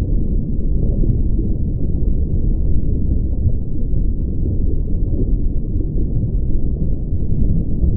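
Steady deep rumble, all low-pitched, with no tune, beat or separate events.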